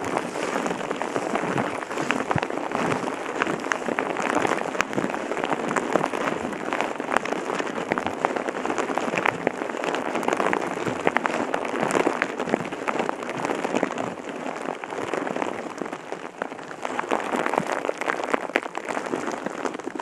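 Steady rain: a dense patter of many small drops with frequent sharper ticks, unchanging throughout.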